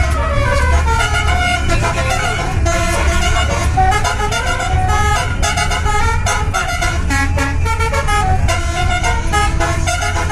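A continuous melody of pitched notes over a steady low rumble, inside a moving bus.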